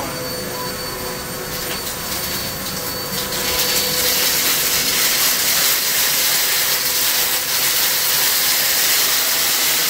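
Kenmore upright vacuum running with its brush bar on, a steady motor whine over airflow noise. About three seconds in it gets louder and noisier as it is pushed into loose wood chips on carpet.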